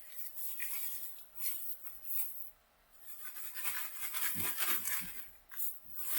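Swisswell rain pants' fabric rustling and swishing as they are handled and rubbed, in uneven bursts with a brief lull part way through; not too loud.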